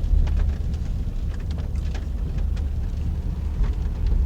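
Heavy rain on a moving car heard from inside the cabin: scattered drops ticking against the roof and glass over a steady low road rumble.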